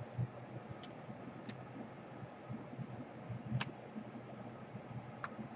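A few scattered sharp clicks and soft knocks from a small screwdriver and screws being worked into a laptop's bottom cover.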